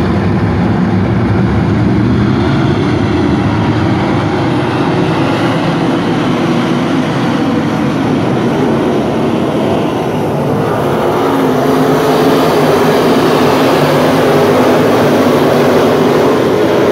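A pack of dirt-track race car engines running together, growing louder about two-thirds of the way through as the field comes down the front straight.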